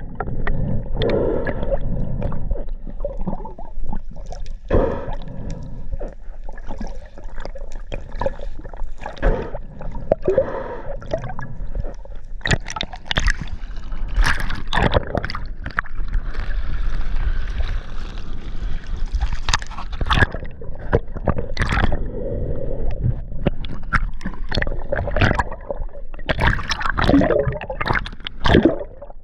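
Sea water sloshing and gurgling, with many short, irregular splashes.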